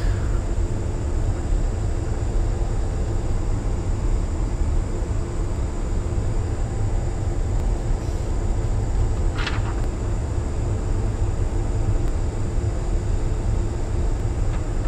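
Steady low rumble with an even hiss from workshop ventilation, with a thin high whine running underneath. One brief click about nine and a half seconds in.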